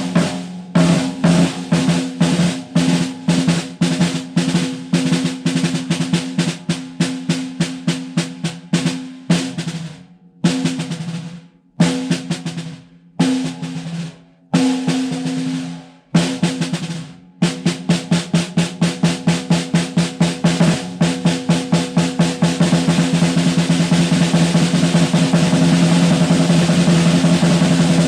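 Tama Starphonic Metal 14x6 snare drum with an Evans 360 heavyweight batter head, struck in quick patterns with each hit ringing on. A few single, spaced strokes come in the middle. It then speeds up into a fast, steady snare roll for the last third.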